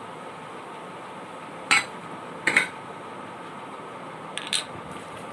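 Metal clinks from Pigeon pressure cooker parts being handled and knocked together: three short sharp clinks, about a second or two apart, over a steady hum.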